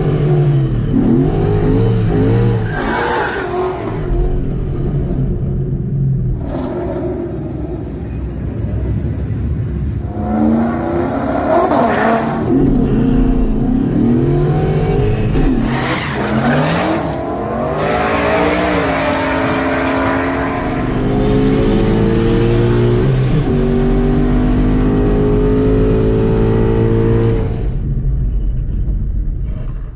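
Ford Mustang V8 revving and accelerating hard, its pitch climbing in sweeps and dropping between gear changes. Several short bursts of rushing noise cut in along the way, and a long pull in one gear near the end cuts off suddenly.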